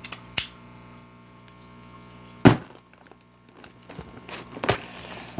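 Scissors and a cardboard LEGO box being worked open: a few sharp clicks and knocks, the loudest a thump about two and a half seconds in, over a steady low hum.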